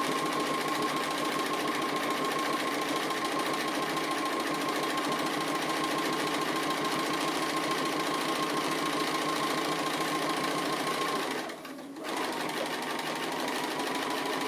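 Sewing machine running steadily as it free-motion straight stitches around an applique with the feed dogs dropped. It stops briefly near the end, then starts stitching again.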